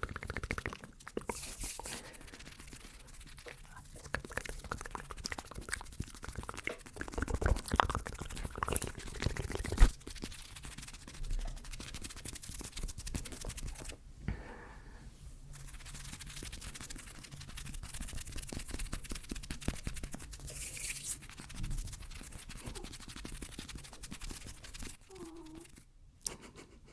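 Close-miked ASMR hand and mouth sounds: a dense run of small crackles, rubbing and scratching noises, with one sharp click about ten seconds in.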